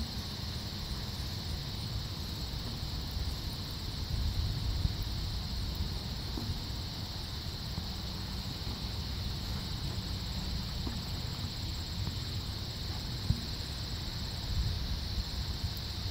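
Steady high chirring of insects, over a low uneven rumble on the microphone and a few faint clicks.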